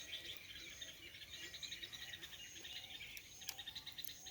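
Faint birdsong: small birds chirping in quick repeated notes, with a light insect hum. A sharp click right at the start and another about three and a half seconds in.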